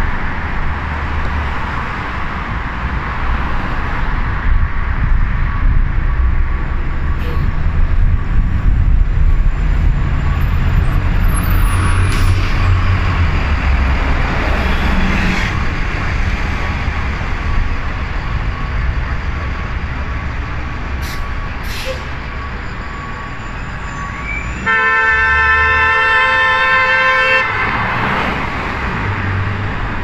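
City street traffic, with vehicles passing in a steady low rumble. Near the end a vehicle horn sounds one long blast of about three seconds at a steady pitch.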